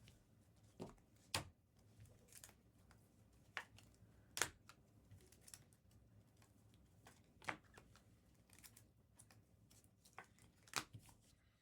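Faint, scattered clicks and rustles of trading cards and foil pack wrappers being handled and opened, with a few sharper snaps among them.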